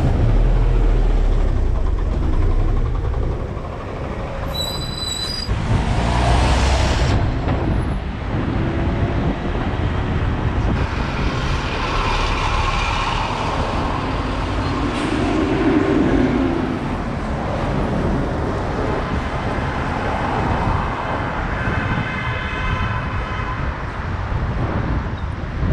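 City street traffic heard from a moving bicycle: a steady mix of passing vehicles and road noise, with a short high tone about five seconds in.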